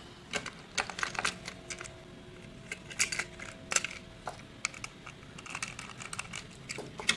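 Plastic clicks and taps as a Takara Tomy Plarail EF510 toy locomotive's shell and battery/motor unit are handled and snapped back together, with uneven knocks coming several a second.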